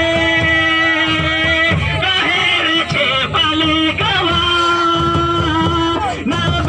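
A song with singing: a voice holds two long notes of nearly two seconds each, with a few sharp beats between them.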